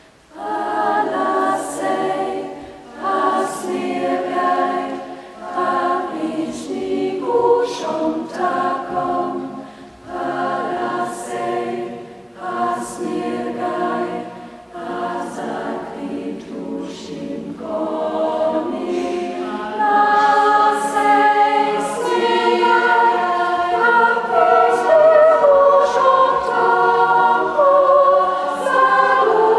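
A choir singing in several parts, entering after a brief breath at the start and growing louder about two-thirds of the way through.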